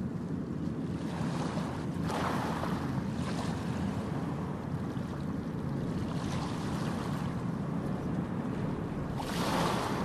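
Ocean surf washing onto a beach: a steady low rumble of water, with a wave breaking and hissing about two seconds in and another near the end.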